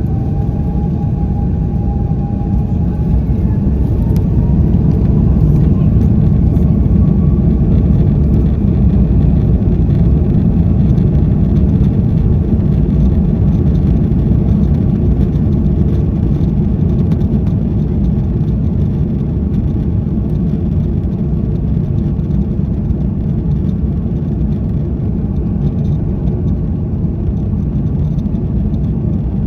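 Airbus A330-300's Rolls-Royce Trent 700 turbofans at high power, heard inside the cabin: a heavy, steady rumble with an engine whine that rises in pitch over the first several seconds as the engines spool up to takeoff thrust, then holds loud and steady.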